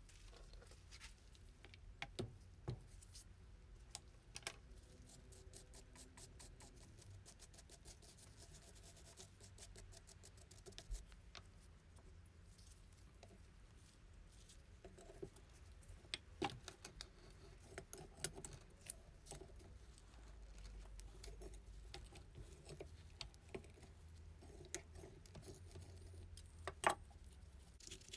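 Faint handling noises: scattered clicks, taps and light scratches over a low hum, with a quick run of fine ticking about a third of the way in and one sharper click near the end.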